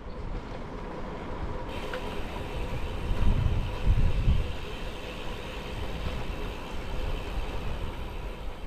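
Strong wind buffeting the microphone, a rumbling rush with the heaviest gusts about three to four and a half seconds in, over a faint steady hum.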